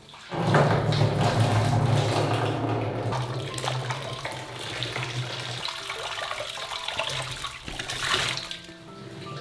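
Water pouring and splashing heavily into a container, starting suddenly and running strongly for about five seconds, then easing, with a second surge near the end. Soft piano music comes back underneath toward the end.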